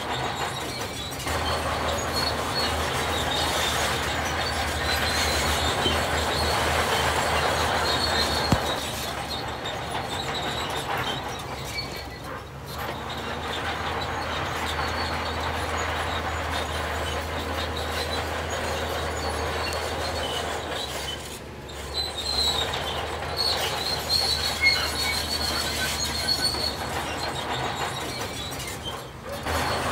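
Heavy diesel earthmoving machinery running with a steady low drone, under a loud grinding rattle and a high metallic squeal. The sound dips briefly three times.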